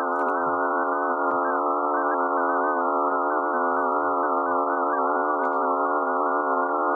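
Space-sound audio presented as the sound of Phobos, Mars's moon: a dense cluster of many steady, slightly wavering electronic tones held together as one unbroken drone chord, eerie enough to be called 'aliens screaming in agony'.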